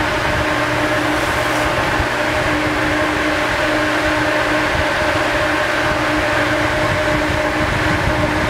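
Large exhaust fan at the top of a tornado chamber running steadily, drawing air up through the vortex: a constant rush of air with a steady hum.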